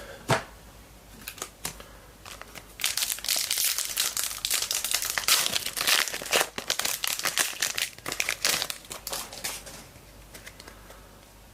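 A foil trading card pack wrapper being handled and crinkled as the pack is opened, a short crackle at first and then dense crinkling for several seconds that dies away near the end.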